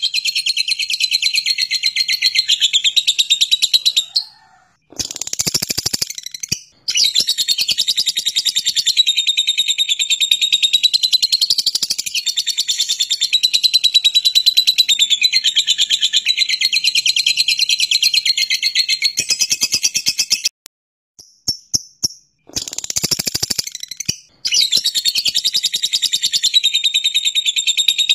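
Lovebird ngekek: a long, very fast, high-pitched chattering trill, held for many seconds at a stretch. It breaks off briefly about four and six seconds in, and again for a few seconds near 21 to 24 seconds, with only scattered chirps in those gaps.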